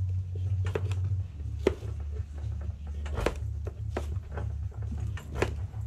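A large kitchen knife cutting through a pumpkin's hard rind on a cutting board: scattered, irregular crunching knocks over a low steady rumble.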